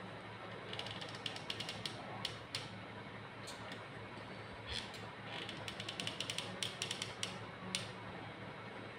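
Hot glue gun trigger squeezed in quick runs of clicks as its ratcheting feed pushes the glue stick through: two spells of rapid clicking, with a few single clicks between.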